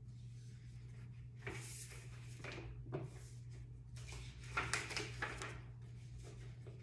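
Paper magazine pages rustling and crinkling as a page is turned and the magazine is handled, in several irregular bouts, over a steady low hum.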